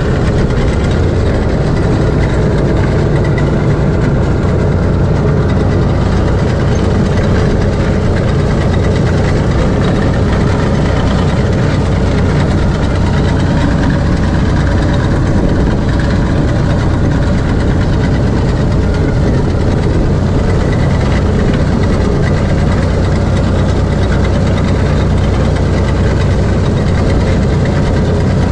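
Tractor engine running steadily, pulling a trailed winged reaper through a standing cereal crop, with the mechanical rattle of the reaper's sickle bar and sweeping reel arms as it cuts. The sound holds even, without change in speed or load.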